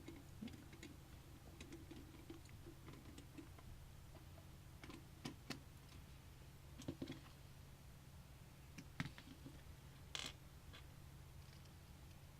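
Faint, scattered clicks and taps of a screwdriver and screws being worked into a computer case, over a low, steady hum.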